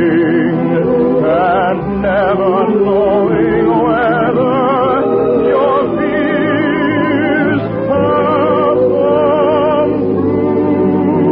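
Orchestral music from an old radio musical play, a melody with wide vibrato climbing and falling over sustained accompaniment, with brief dips between phrases about two and eight seconds in. The sound is dull and narrow, as on an old broadcast recording.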